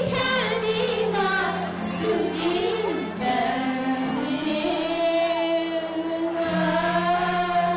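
Two women singing a duet into microphones over backing music, holding one long note over the last few seconds.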